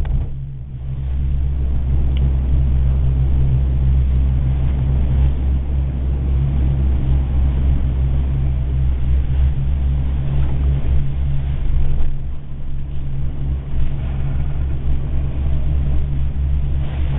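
Steady low mechanical rumble and hum of a gondola cabin travelling along its haul cable, briefly louder about twelve seconds in.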